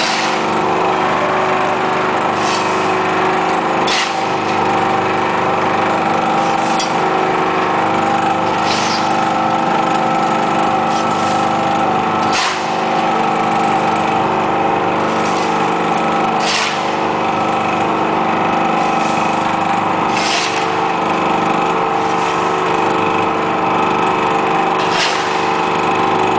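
Hydraulic metal scrap baling press running: a steady hum from its motor and hydraulic pump, with several constant tones, broken every few seconds by a short sharp click.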